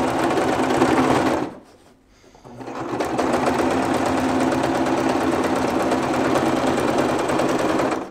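Bernette domestic sewing machine stitching a seam: a short run of about a second and a half, a brief stop, then a steady run of about five seconds that stops just before the end.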